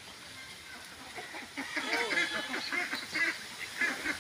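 A flock of domestic ducks quacking: many short calls overlap, starting about one and a half seconds in and continuing in a busy, uneven run.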